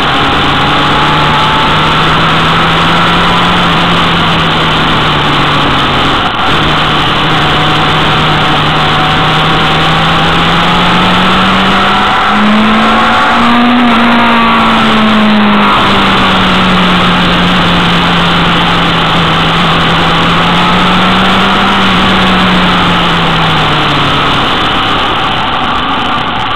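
Motorcycle engine running at road speed under heavy wind rush on the microphone. The engine note rises about halfway through, holds, then drops away near the end as the throttle eases.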